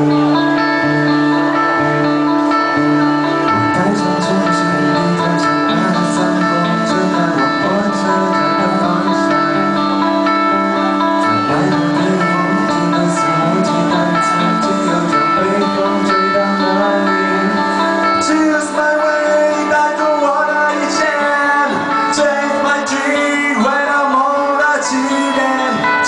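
Live indie band playing a song's opening: guitar and other instruments holding steady chords that change every few seconds. A voice comes in singing past the middle.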